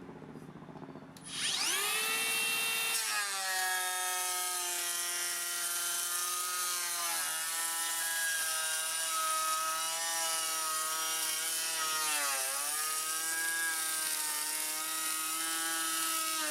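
Makita 40V XGT cordless planer starting up a little over a second in, its whine rising in pitch as the motor spins up. It then runs at a steady high whine while planing wood, the pitch sagging briefly twice under the cutting load.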